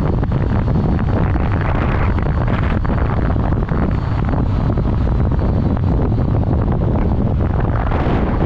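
Loud, steady wind buffeting on the microphone of a moving vehicle, with the rumble of the ride underneath.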